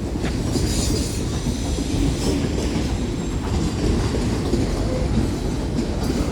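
Freight cars of a long Union Pacific manifest train rolling past at close range: a steady, loud rumble of steel wheels on rail, with occasional clicks and a faint high squeal from the wheels.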